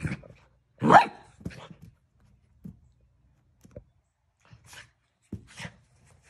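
Eight-week-old golden retriever puppy barking in short, sharp yaps several times, the loudest about a second in and a few more near the end.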